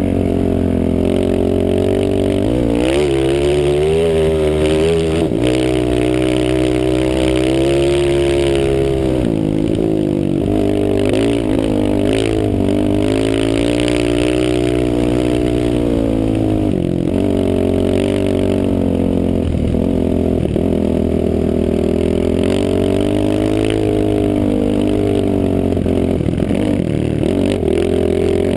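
Off-road vehicle engine being ridden, its pitch rising and falling as the throttle opens and closes, with marked drops and climbs about three, ten and seventeen seconds in.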